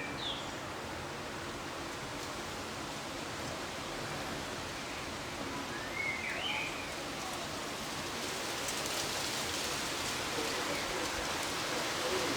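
Steady hiss of rain falling during a thunderstorm, with a few short high chirps heard faintly over it, just after the start and about six seconds in.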